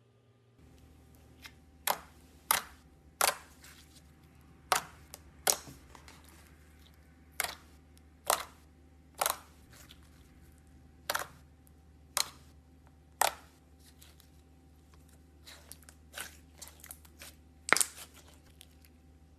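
Slime being pressed and squeezed by hand, giving sharp clicking pops about once a second, then a quicker run of smaller pops near the end with the loudest one among them.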